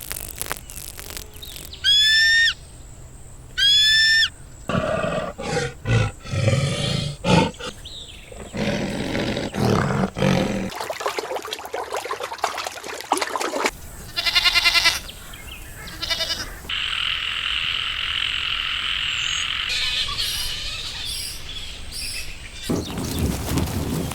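A run of separate recorded animal calls, one after another: two short high calls that sweep in pitch, then a stretch of rough roaring, then rapid pulsed calls and a steady high hissing sound.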